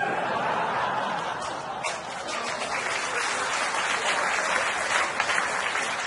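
Audience applause in a hall, breaking out suddenly after a punchline and holding steady for about six seconds before thinning out.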